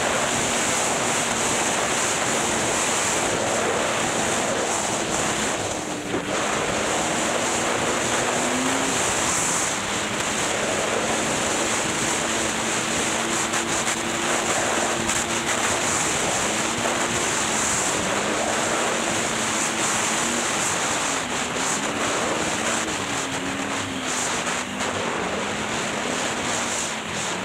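Snowmobile engine running at speed, its drone wavering in pitch and dipping several times in the second half as the sled slows, under heavy wind rush on the microphone.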